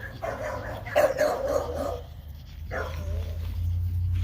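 Pocket American Bully dog barking and whining, loudest about a second in, with a short whine sliding in pitch near the end.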